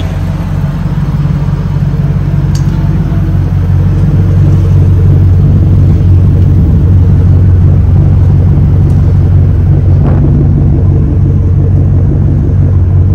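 Chevy Impala SS's cammed 5.3-litre LS4 V8 idling steadily through a 3-inch exhaust with Borla mufflers, a deep, even rumble that gets a little louder about four seconds in. The owner says the exhaust is cracked and leaking near the Y-pipe.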